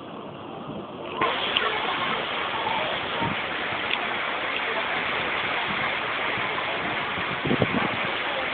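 Heavy rain pouring down and splashing on wet pavement, a steady rushing noise that turns suddenly louder about a second in.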